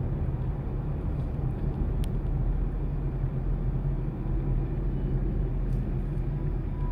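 Steady low rumble of road and engine noise inside a moving car's cabin, with a single click about two seconds in.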